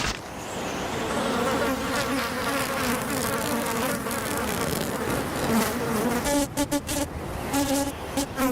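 A low, pitched buzz that wavers up and down, breaking into short stuttering pulses over the last two seconds.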